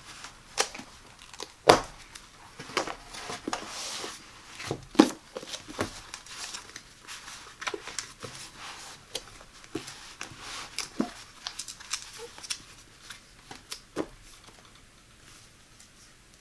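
Lined paper pads being shuffled and spread across a tabletop: paper rustling and sliding, with sharp taps as pads are set down, the loudest about two and five seconds in. The handling settles down near the end.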